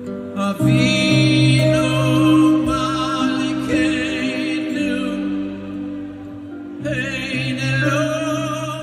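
A man singing a slow song live through a concert PA, holding long notes with vibrato over a sustained instrumental accompaniment. The sung phrase breaks off about five seconds in and a new one starts about two seconds later.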